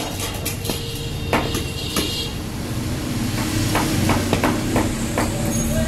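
Heavy knife chopping through tilapia on a wooden chopping block: a series of sharp knocks, some spaced out, then a quicker run of chops about four seconds in, over a steady low hum of background noise.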